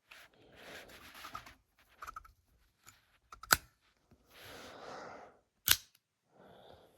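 Smith & Wesson M&P out-the-front knife's spring-driven blade snapping as it is worked: two sharp clicks about two seconds apart, with rustling of the knife being handled between them.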